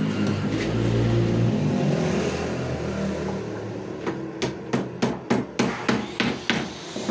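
A quick series of about ten sharp knocks, roughly three a second, in the second half. Before them a steady low hum.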